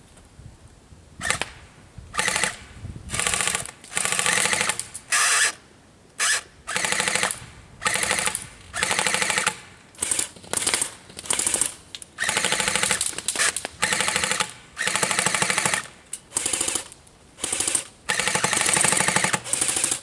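Mounted electric airsoft gun firing on full auto in a long series of short bursts, each a rapid, even rattle of shots from the motor-driven gearbox, separated by brief pauses.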